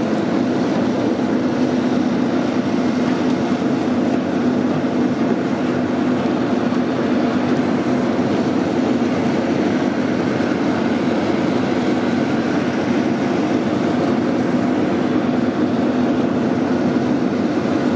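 Loud, steady mechanical drone of machinery running, with a constant low hum that never changes.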